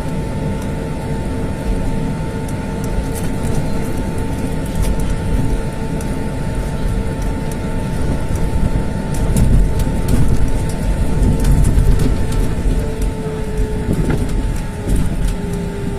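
Jet airliner noise heard from aboard: a steady low rumble with a steady engine whine. The rumble grows louder about nine seconds in, and the whine dips slightly in pitch near the end.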